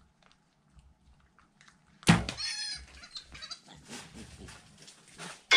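Feral hogs: a sudden loud high-pitched squeal about two seconds in, followed by scattered softer noises.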